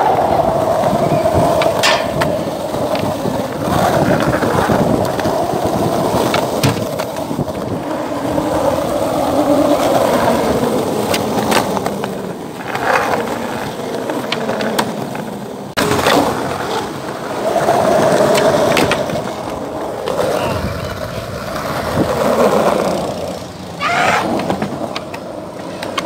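Skateboard wheels rolling over rough concrete with a continuous grinding rumble, broken several times by sharp clacks of the board popping and landing.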